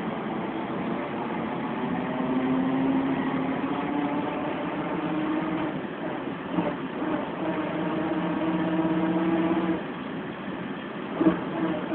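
Volvo B10M bus engine and worn gearbox heard from inside the cabin, giving a howl that rises in pitch, drops about six seconds in, rises again and drops near ten seconds in as the bus gathers speed. A sharp knock comes near the end.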